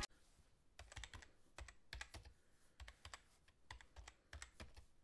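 Faint computer keyboard typing: irregular key clicks, a few a second, starting about a second in.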